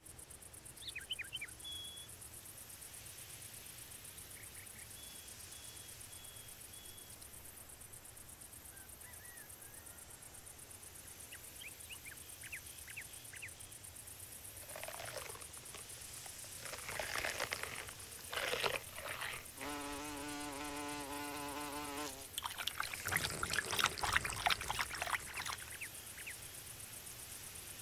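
Garden insect ambience: a steady high insect hiss with short scattered chirps, then insects buzzing past from about halfway. A steady, even-pitched fly buzz comes in for about two seconds, followed by a flurry of rapid clicks and chirps near the end.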